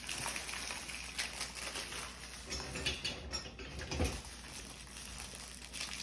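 Plastic wrapper on a microwave popcorn bag crinkling and rustling in uneven bursts as hands work to tear it open, with a small knock about four seconds in.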